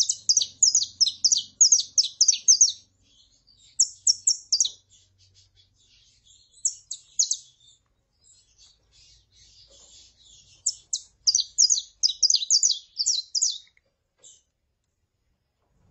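Saffron finch calling: quick runs of sharp, high, downward-slurred chirps in four bursts, the longest at the start and another from about eleven seconds in, with short pauses between.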